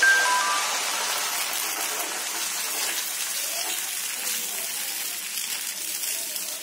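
Dosa batter sizzling on a hot nonstick tawa as it is poured and spread round in circles with a ladle. It is a steady hiss, loudest at the start and easing off slowly.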